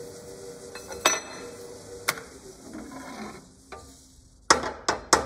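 Pillar drill running and cutting a hole in a steel motorcycle stand clamped in a machine vise, with two sharp clicks. The drill dies away about three seconds in, then three loud metal clanks as the vise is opened and the stand lifted out.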